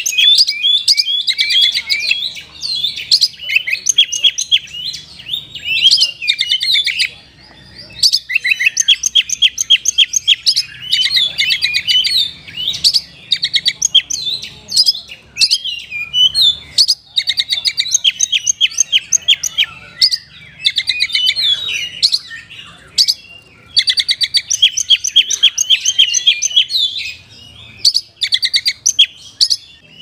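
Oriental magpie-robin (kacer) in full, loud song: a rapid stream of varied whistled phrases and fast trills, rich in borrowed phrases, broken by short pauses every few seconds.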